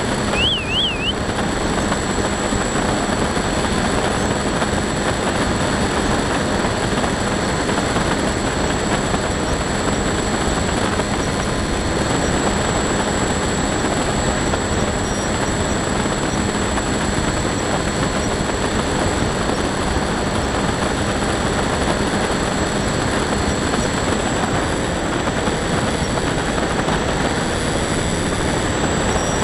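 Skywalker RC plane's electric motor and pusher propeller running steadily in flight, heard through an onboard camera under a heavy, even rush of wind.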